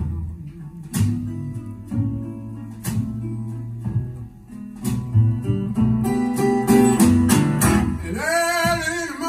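A song played back over a pair of Falcon LS3/5A bookshelf speakers: plucked acoustic guitar and bass, with a singing voice coming in near the end.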